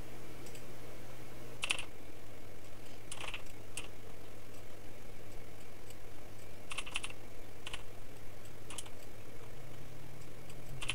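Scattered single clicks of a computer mouse and keyboard, a few of them in quick succession about seven seconds in, over a steady low hum.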